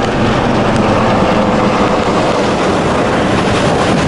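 Helicopter flying overhead, a steady drone with a few faint steady tones in it, over wind and surf noise.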